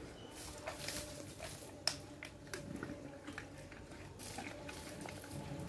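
Water thrown by hand from a bucket onto a freshly sown vegetable bed: a few soft splashes and patters on the soil, with scattered small clicks between them.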